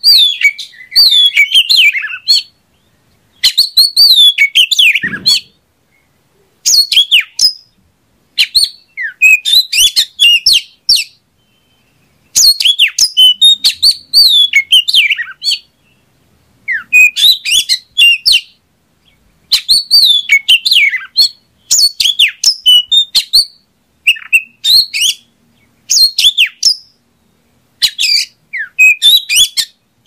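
Oriental magpie-robin (kacer) singing: varied whistled phrases of one to three seconds, sweeping up and down in pitch, repeated about a dozen times with short pauses between them.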